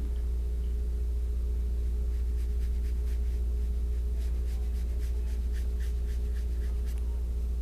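Small watercolor brush stroking and dabbing paint on watercolor paper, making faint soft swishes and light ticks, over a steady low hum.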